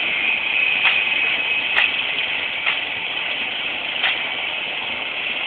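Engine of a roller soil compactor running steadily, with the vibrating rollers not switched on. A few faint ticks come through about a second apart.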